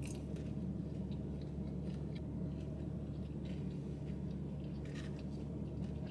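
Quiet chewing and small clicks of a plastic fork picking at food in a styrofoam takeout container, over a steady low hum.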